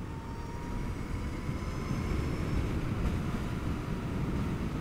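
Zero DSR electric motorcycle riding at road speed: a steady rush of wind and road noise with a faint high whine from the electric drivetrain.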